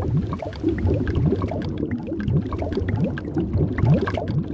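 Underwater bubbling sound effect: a dense stream of bubbles gurgling, each a quick rising blip, over a steady low rumble.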